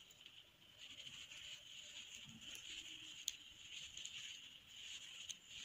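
Faint rustling and light ticking of a steel crochet hook pulling thread through stitches against cloth, over a steady low hiss.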